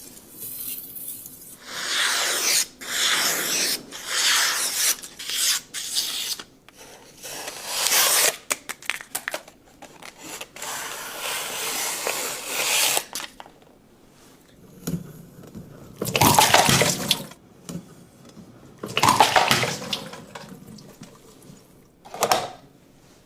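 Water rushing and splashing in a series of bursts, each lasting about one to three seconds, with short quieter gaps between them.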